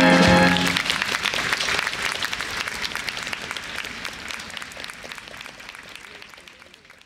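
A school wind band's final held chord cuts off just under a second in, and the audience breaks into applause that fades steadily away.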